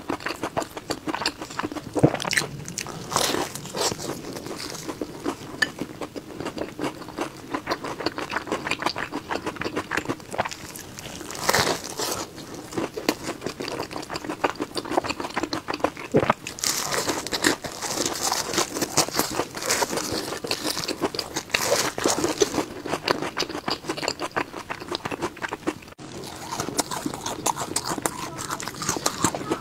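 Close-miked eating of a crisp pastry with a sesame crust: crackly crunching bites and chewing throughout, with louder crunches now and then.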